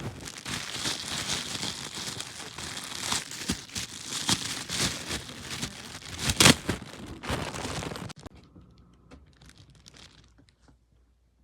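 Crinkling and rustling with many sharp crackles, as of something crinkly being handled. It stops suddenly about eight seconds in, leaving only faint ticks.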